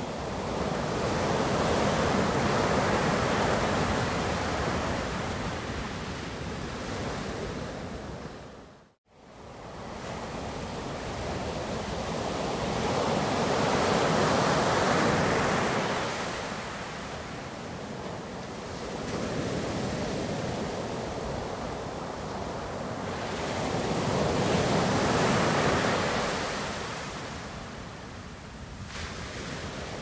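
Ocean waves surging onto a shore, swelling and falling back in slow surges about every ten seconds. The sound dips briefly to silence about nine seconds in.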